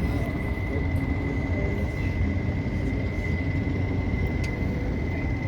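Steady low rumble of a cruise ship's deck ambience, with a thin constant high whine over it.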